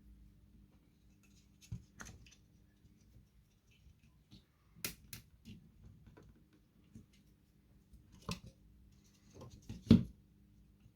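Scattered small clicks and knocks from hands handling tools and parts on a workbench, with the loudest knock near the end, over a faint steady low hum.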